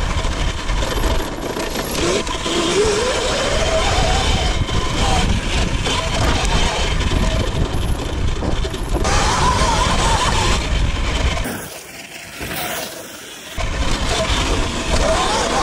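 Electric dirt bike riding noise: wind buffeting the microphone, with a motor whine rising in pitch a few seconds in. The noise drops away briefly around twelve seconds in.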